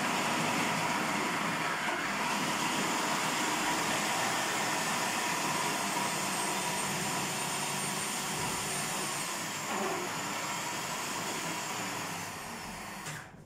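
Electric food processor running steadily, grinding fava beans with onion and garlic into ta'meya (falafel) paste. Its high whine sags a little in pitch later on, and the motor cuts off near the end.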